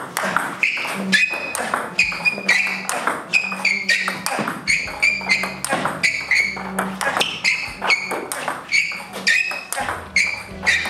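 Table tennis rally: the plastic ball clicks sharply off the rubber bats and the table several times a second as forehand topspin drives are played against backspin. Shoes squeak on the floor with the quick small footwork steps.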